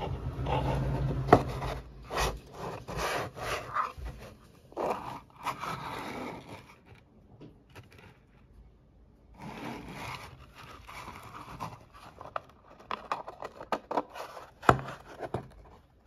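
Hands handling a small plastic radio case: scraping and rubbing as it is pulled open, a short pause, then more scraping as it is fitted back together, with one sharp click near the end.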